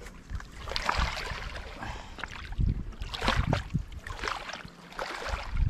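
Shallow water lapping and splashing at the shoreline in irregular swells, with wind buffeting the microphone.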